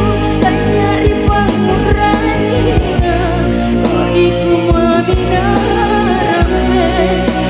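A woman sings a Makassarese kelong song with vibrato into a microphone, over a live band of keyboard, guitar and percussion beating steadily.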